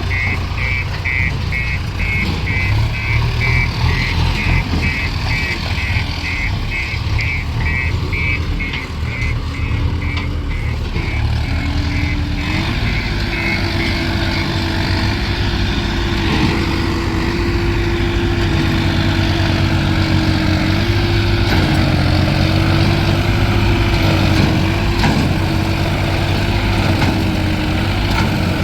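Diesel engines of a backhoe loader and farm tractors running. A reversing alarm beeps about twice a second through the first half, and about halfway through an engine revs up and holds at higher revs.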